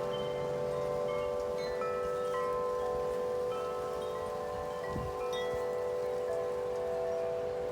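Tuned metal wind chimes ringing continuously in strong wind, new strikes landing over long, overlapping tones, with wind rumble underneath and a brief gust about five seconds in.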